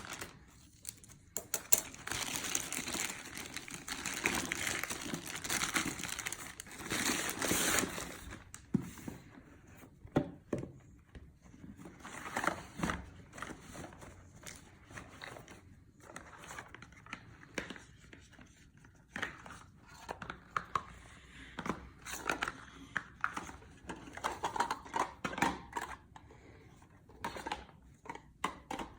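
Mail packaging being torn open and handled: dense crinkling and tearing of the wrapping for the first several seconds, then scattered clicks and shorter rustles as the contents are unpacked.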